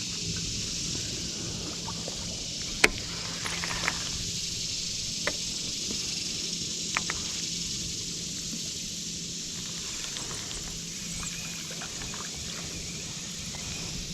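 Outdoor ambience on a fishing boat on a lake: a steady high hiss with a faint low hum that comes and goes, broken by a few short sharp clicks, the loudest about three seconds in.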